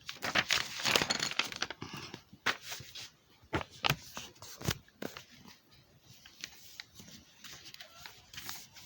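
A sheet of paper being flipped over and folded by hand: rustling and crinkling, busiest in the first two seconds, with a few sharp crackles up to about five seconds in, then only faint rustles.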